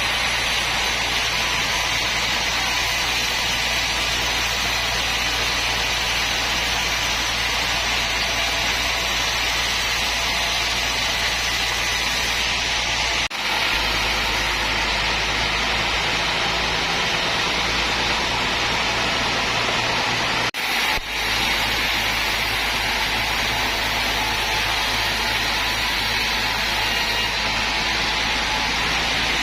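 Sawmill machinery running steadily, a constant low hum under a loud hiss, with two brief dropouts partway through.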